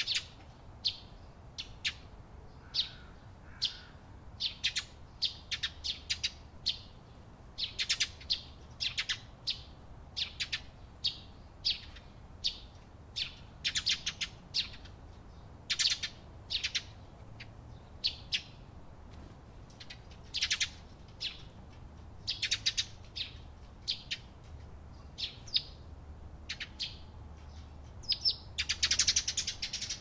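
Flock of Eurasian tree sparrows chirping: short high chirps come irregularly, one or a few every second, with a quick run of many chirps near the end.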